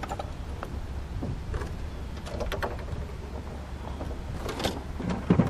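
Light knocks and clicks of gear being handled in an aluminum jon boat over a steady low rumble, with a heavier thump on the hull near the end.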